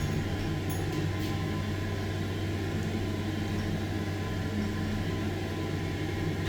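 Passenger lift's motor running with a steady low hum, with a couple of faint clicks about a second in.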